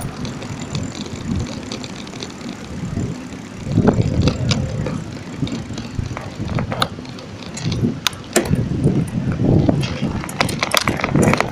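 Bicycle riding on city pavement, heard from the rider's handheld camera: wind buffeting the microphone and a rough road rumble, with light clicks and rattles from the bike that grow more frequent in the second half.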